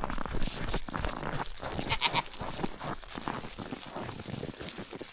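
Footsteps crunching through deep, very cold snow, in an irregular series of short crunches. About two seconds in comes a brief high-pitched, pulsing animal-like call.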